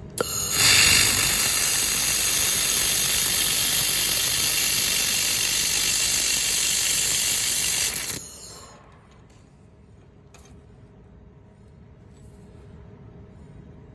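Welding on 4 mm carbon steel: a loud, steady hissing noise that starts abruptly just after the beginning and cuts off about eight seconds in.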